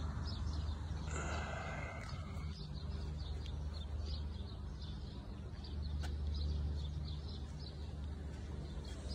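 Outdoor ambience: short high chirps repeating about twice a second over a low steady rumble, with a brief louder call about a second in.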